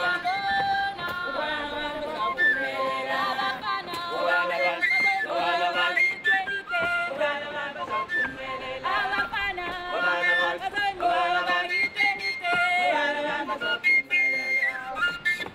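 Music with several melodic lines in a high, whistle-like register, jumping quickly from one held note to the next.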